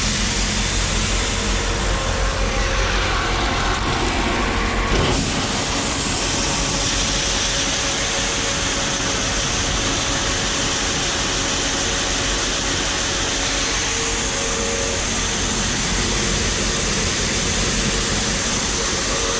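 Grain dryer and elevator machinery running steadily. About five seconds in the sound turns to a brighter hiss as the dryer's unload is opened and shelled corn runs out of it into the elevator.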